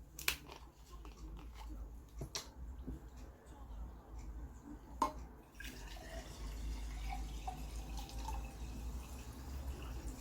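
Seagram plain sparkling water being poured: a few sharp clicks in the first half, then from about halfway a steady fizzing trickle of carbonated water.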